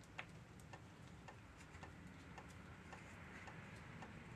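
Near silence with faint, evenly spaced ticking, about two ticks a second.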